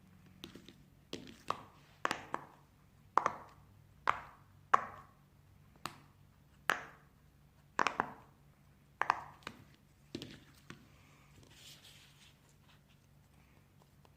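Silicone pop-it fidget toy bubbles being pressed one after another, each giving a short, sharp pop. About twenty pops come at an uneven pace, some in quick pairs or threes, and they stop about eleven seconds in.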